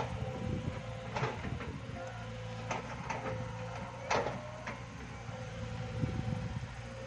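Mini excavator's diesel engine running steadily, with several sharp clanks of its bucket against rock and earth, the loudest about four seconds in.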